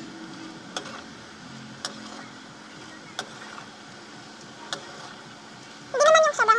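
Metal ladle clinking against a wok every second or so as homemade sugar syrup is stirred, over the steady hiss of the gas burner and simmering syrup. A short, high voice sounds near the end.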